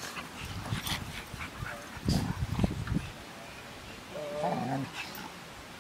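A group of dogs playing together and vocalizing. The loudest part is a low, rough burst about two seconds in, and a short pitched call that falls in pitch comes just after four seconds.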